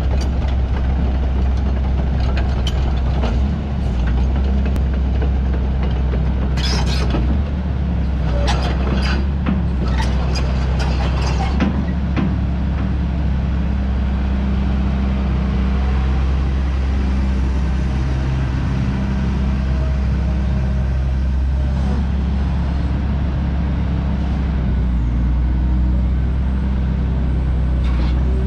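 XCMG XE215C hydraulic excavator's diesel engine running steadily under load as the boom, arm and bucket are worked. A cluster of sharp clicks and knocks comes between about a third and halfway through, and a faint whine rises and falls a little past the middle.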